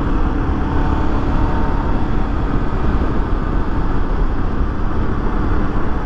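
2013 Honda XRE300's single-cylinder engine running steadily at cruising speed, under a constant rush of wind on the microphone.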